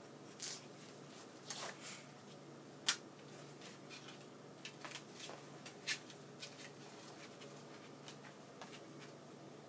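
Faint handling noises: scattered light taps and rustles, the sharpest a single tap about three seconds in, over a low steady hum.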